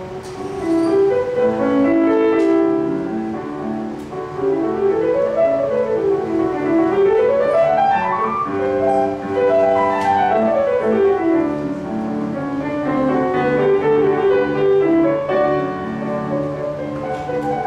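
Solo grand piano playing a classical piece, with quick scale runs that climb upward in the middle and then run back down.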